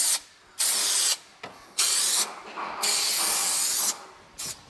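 Aerosol can of spray adhesive hissing in short squirts: about four bursts of half a second to a second each with brief pauses between, the longest near the end, then a quick puff.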